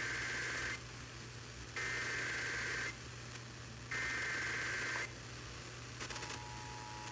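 EAS/SAME digital header sent over NOAA Weather Radio: three one-second bursts of warbling data tones, a second apart, with the first already underway. About six seconds in, the steady 1050 Hz weather-radio warning alarm tone begins, heard over radio hiss and a low hum, signalling that a new warning is about to be read.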